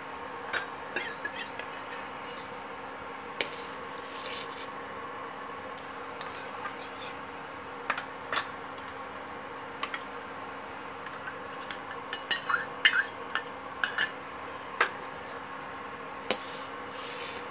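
Steel ladle scraping and clinking against a stainless-steel pot while stirring hot milk that has just had custard added, in scattered strokes that are busiest about twelve to fifteen seconds in. A steady faint hum from the induction cooktop sits underneath.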